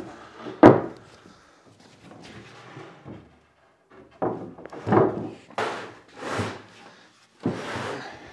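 Wooden drawer carcass being lifted and shoved into a wooden workbench frame: a sharp knock about a second in, then a run of thuds and sliding scrapes as it is pushed into place.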